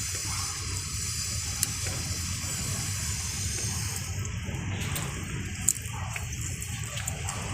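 Wet eating and chewing sounds of a mukbang meal of pig feet over a steady low rumble, with two sharp clicks, one early and one about three-quarters of the way through.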